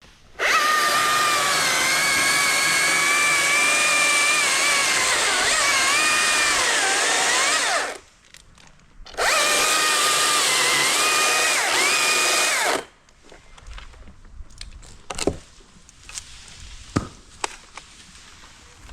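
Chainsaw running at full throttle through a cut for about eight seconds, its pitch dipping as it loads, then a second burst of about four seconds. After it stops come a few scattered knocks and clicks.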